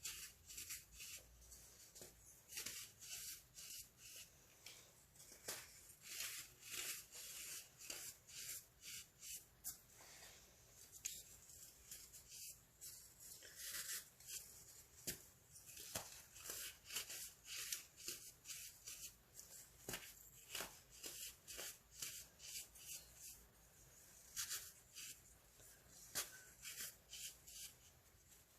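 Crunchy baking soda being crushed: a run of short, crisp crunches, irregular and closely spaced, a couple each second.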